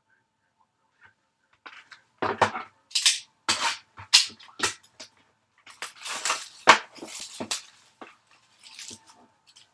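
Plastic shrink-wrap crinkling and tearing as a sealed trading-card box is unwrapped: a run of sharp rustles and rips that starts about two seconds in.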